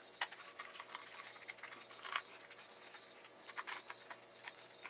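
Small cardboard battery box being opened by hand and a small plastic bag pulled out of it: faint scattered clicks and crinkles of the packaging, with a few slightly louder clicks spread through.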